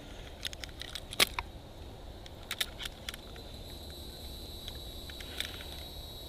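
Scattered light clicks and knocks from a bass and a fish scale being handled in a boat while the fish is weighed, the sharpest about a second in, over a steady low rumble. A faint, steady high tone comes in about halfway through.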